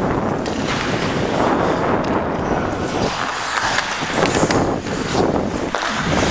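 Steady rush of wind over the microphone of a camera worn by a skating hockey player, mixed with the scrape of skate blades on the ice.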